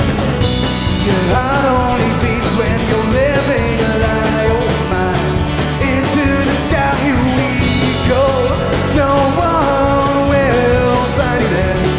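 Live band music in a bluegrass and country style: strummed acoustic guitar, picked mandolin, electric bass and a drum kit, with a male lead vocal. Cymbals wash in about a second in and again near eight seconds.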